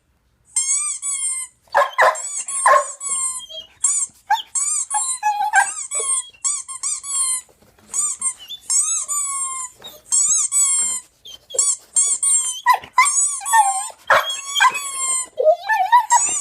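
A squeaky-toy sound effect played back as repeated runs of quick, wavering high squeaks. A dog answers with a few short barks among them.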